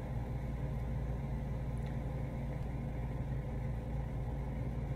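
Window-type air conditioner running: a steady low mechanical hum with a faint whine above it.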